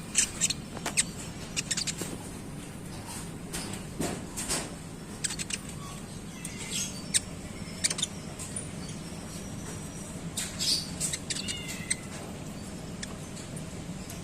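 Konin songbird giving short, sharp, squeaky high chirps in irregular clusters, with a few brief curved chirping calls around seven and eleven seconds in, over a steady low hum.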